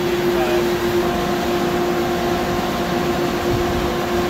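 Steady mechanical hum with a constant tone, a second higher tone joining about a second in, from machinery running in the workshop.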